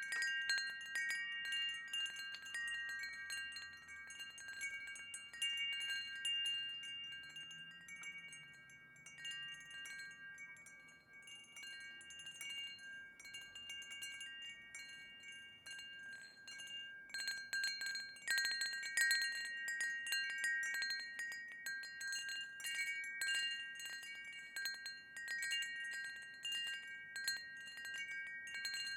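Wind chimes ringing, struck at irregular moments so that several clear tones overlap and hang on. The strikes thin out around the middle and come thicker again about two-thirds of the way through.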